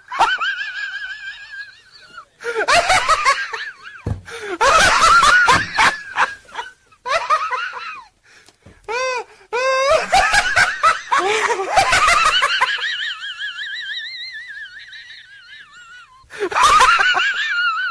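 Hearty laughter in loud bursts with short gaps between them, the voice high and wavering; it sounds like a laugh sound effect laid over the scene rather than laughter recorded on the spot.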